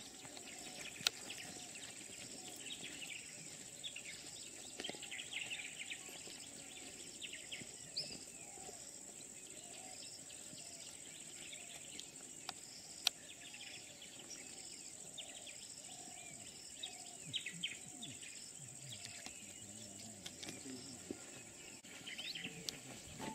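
Outdoor insect-and-bird ambience: a steady high-pitched insect drone with many short bird chirps and calls over it, and two sharp clicks, one about a second in and one about halfway through.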